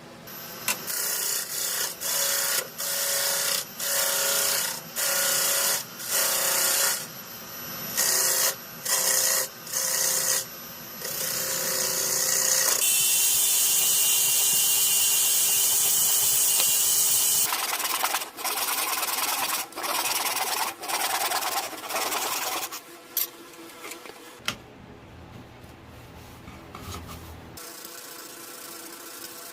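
A tool abrading wood in a run of short strokes, about one a second, then one continuous stretch of about five seconds, then more short strokes before it goes quieter near the end.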